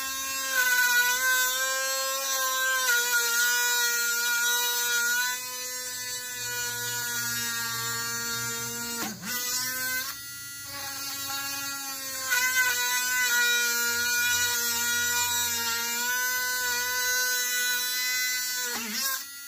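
Homemade mini drill, a small DC motor spinning a thin bit, whining steadily as it bores holes into wood. Its pitch dips sharply about nine seconds in and again near the end.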